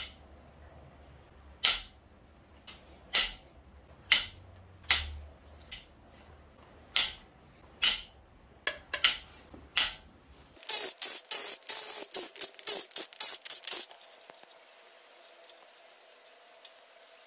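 Cylinder head bolts on a 4.8 L LS V8 being broken loose with a long breaker bar, each letting go with a single sharp crack, a dozen times over about ten seconds. A run of rapid ratchet clicking follows for about three seconds as a bolt is spun out.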